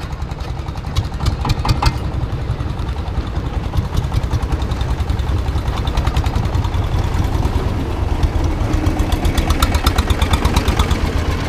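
Wooden long-tail boat's engine running steadily under way, a low, fast, even chugging.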